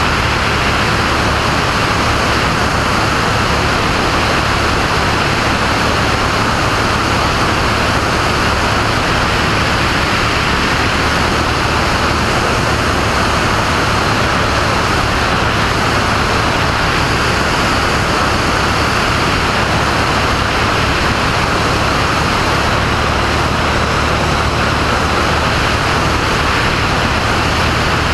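Single-engine propeller airplane in cruise flight: the piston engine and propeller drone steadily and loudly under a constant rushing noise, with no change in power.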